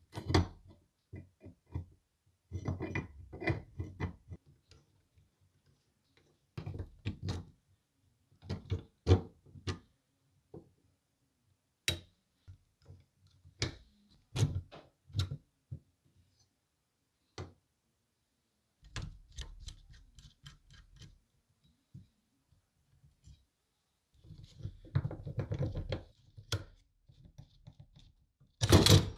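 Metal parts of a vintage APSCO "Dandy" pencil sharpener's cutter assembly being handled and worked with a pick and needle-nose pliers: scattered clicks, knocks and light clinks in short clusters with silent gaps between, the loudest knock near the end.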